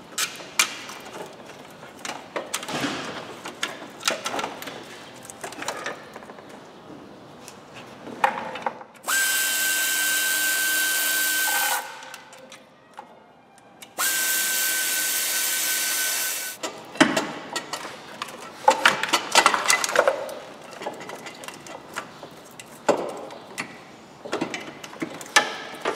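Clinks and knocks of tools and metal parts on a car engine, with a power tool run twice for about three seconds each, a steady whine over hiss, as bolts are undone.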